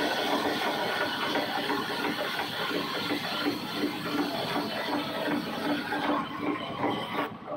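Large vertical band saw running and cutting through a big log, with a rapid, regular mechanical clatter under the cutting noise. Near the end the higher part of the sound thins out and it gets a little quieter.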